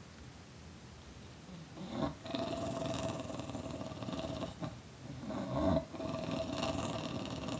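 English bulldog growling in two long, steady-pitched growls, the first starting about two seconds in and the second after a brief break.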